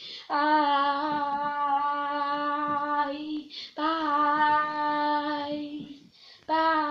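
A boy singing his end-of-video signature: long held notes at one steady pitch, the first about three seconds long, a second after a short breath, and a third starting near the end.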